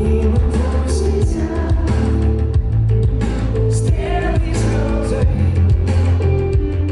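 Rock band playing live through a loud PA: steady bass, drum hits and guitar, with a singing voice over the top.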